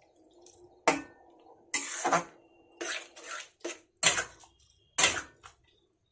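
Flat metal spatula scraping and knocking against an aluminium wok while stirring noodles in broth: about six sharp metal strokes at uneven intervals, over a faint steady hum.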